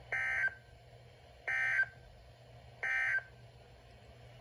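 Three short, identical data-tone bursts about 1.4 seconds apart from a Midland NOAA weather radio's speaker: the SAME end-of-message code that closes a broadcast alert.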